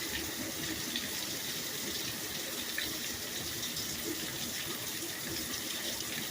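Heavy thunderstorm rain pouring down steadily, an even rushing hiss of water with faint splashes.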